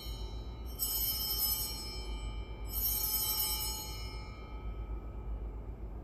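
Altar bells rung at the elevation of the chalice during the consecration. Two rings, about a second in and about three seconds in, each a bright cluster of high bell tones that fades out over a second or two, following the dying tail of an earlier ring.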